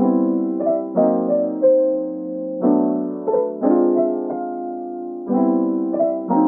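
Soft background piano music: chords struck roughly once a second, each fading away.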